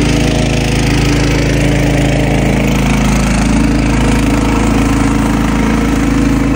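A motor engine running steadily at idle, loud and close, with a slight shift in its note about three seconds in.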